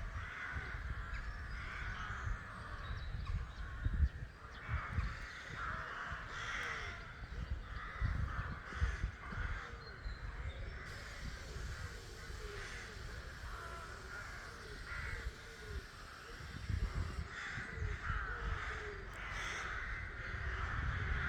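Many ravens calling from their nesting trees: a continuous, overlapping chorus of hoarse caws, with occasional low rumbles underneath.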